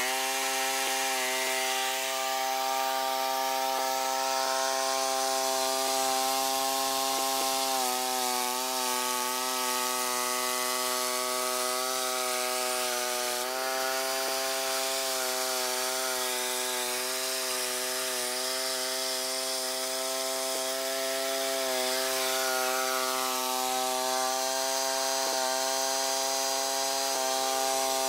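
Allis-Chalmers 410 garden tractor engine running steadily under load while driving a rear-mounted rototiller through soil. Its pitch shifts slightly a few times as the load changes.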